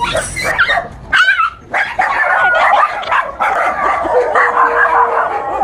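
Dog barking and yipping excitedly in a fast, almost unbroken run, with a rising-and-falling yelp a little after one second.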